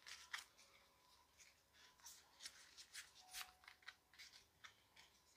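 Faint, scattered crisp clicks and rustles of Pokémon trading cards being handled and slid through the fingers while a freshly opened booster pack is sorted.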